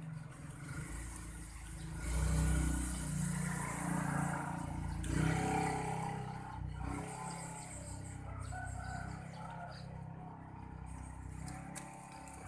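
A motor vehicle's engine going past, loudest about two seconds in with a second swell around five seconds, then dying away to a low hum.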